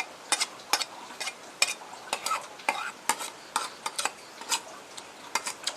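Close-miked eating of boiled instant noodles: wet chewing and lip-smacking clicks in an irregular run of about two a second.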